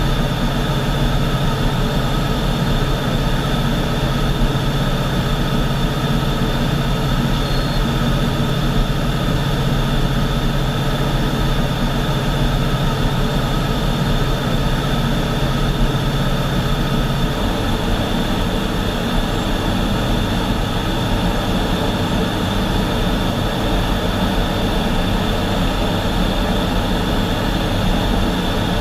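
Steady cockpit noise of a U-2 Dragon Lady in high-altitude cruise: its jet engine and airflow make an even rushing noise with a couple of steady high tones over it. A low hum in the noise drops away about 17 seconds in.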